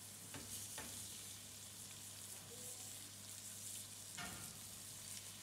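French fries deep-frying in hot oil in a pot: a steady high sizzle of bubbling oil, with a few sharp clicks.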